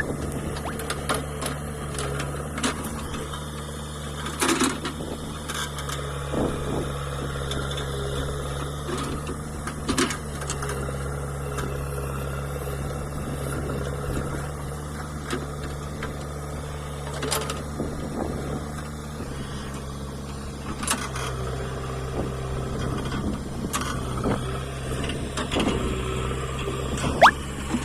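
Backhoe loader's diesel engine running steadily, its note shifting about two-thirds of the way through, with scattered clanks and knocks and a short rising squeak near the end.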